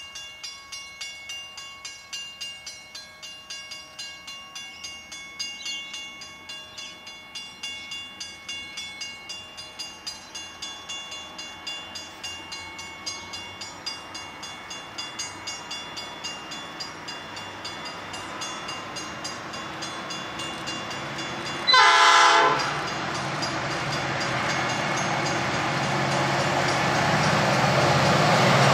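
Pacific National 81 class diesel locomotives on an approaching freight train sound their horn in one blast of about a second, late in the clip, after which the rumble of their engines grows as they draw near. Before the horn, a bell dings steadily at about two to three strokes a second.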